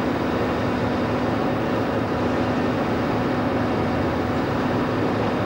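Steady drone of the minesweeper's machinery with a constant hum, mixed with wind and sea noise on the open stern deck.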